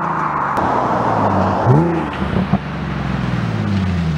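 Nissan 370Z's 3.7-litre V6 heard through an Auto Dynasty cat-back exhaust as the car drives away after passing. About halfway through there is a short rev that rises and falls. Near the end the note drops in pitch as the car slows.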